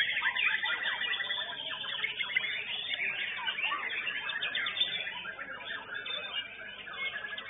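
Many white-rumped shamas (murai batu) singing at once: a dense, unbroken chorus of overlapping rapid high chirps, trills and whistles.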